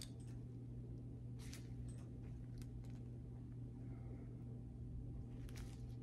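Faint plastic clicks and crinkles of IV tubing, its spike and roller clamp being handled in gloved hands, a few light touches spread through, over a steady low hum.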